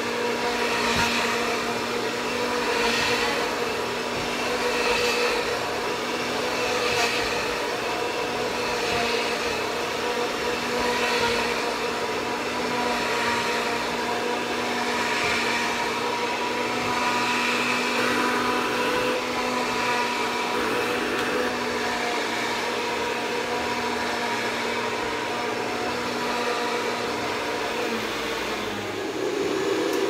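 Canister vacuum cleaner running, its motor whining steadily, with the rush of air swelling and easing about every two seconds as the floor head is pushed back and forth over a rug. The sound shifts near the end.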